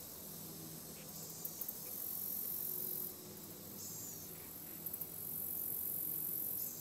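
Insects buzzing in the swamp forest, a very high-pitched drone that switches on and off in stretches of a second or two.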